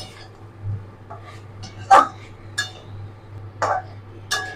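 A spatula scraping and knocking against a wok while stirring chicken pieces, with a handful of short sharp strokes spaced irregularly about half a second to a second apart. A steady low hum runs underneath.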